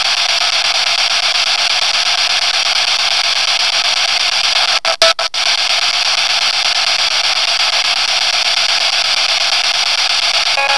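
Steady, loud hiss of static with no low end, cutting out briefly two or three times about five seconds in.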